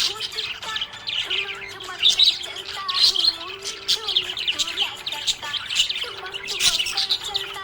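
Budgerigars chirping continuously in quick, high chirps, with a lower wavering note beneath.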